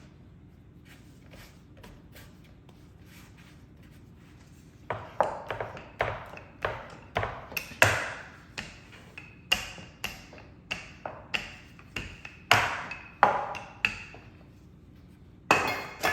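A hard kitchen utensil tapping and knocking on a countertop, beginning about five seconds in. There are about twenty sharp taps at an uneven pace of roughly two a second, each with a short ringing note.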